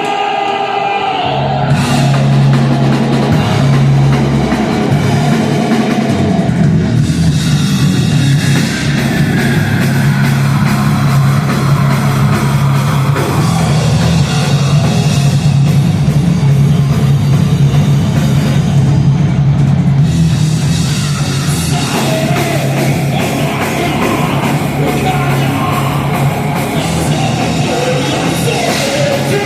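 Rock band playing live, heavy and loud, with distorted guitars, bass and drum kit; the full band comes in hard about two seconds in.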